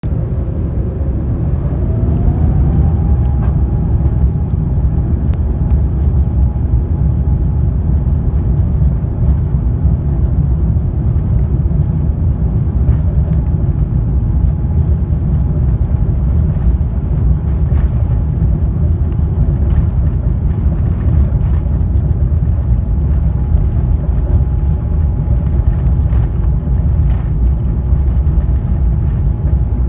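Jet airliner cabin noise while taxiing: a steady, loud rumble of the engines and airframe, with an engine whine that rises in pitch about two seconds in and then holds steady.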